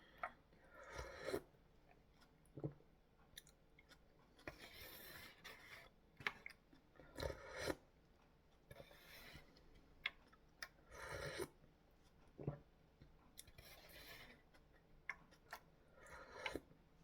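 Quiet eating sounds as ramen and radish kimchi are eaten: chewing, with short noisy bursts every couple of seconds and scattered light clicks.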